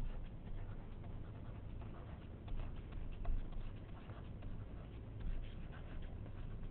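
Stylus scratching and tapping lightly on a tablet screen while handwriting a few words, small irregular clicks over a low steady hum.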